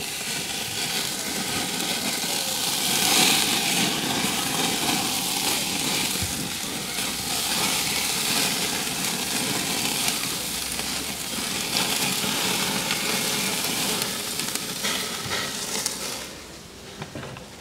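Marinated chicken sizzling on a charcoal barbecue grill as a mix is added to it. The steady hiss swells about three seconds in and fades near the end.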